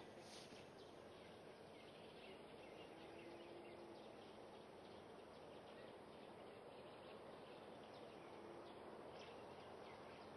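Near silence: faint background ambience with a steady hiss and scattered faint high chirps.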